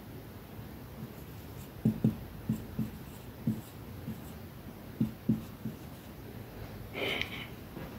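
Marker pen writing on a whiteboard: a series of short, low knocks and taps as the strokes press against the board, in a quiet small room.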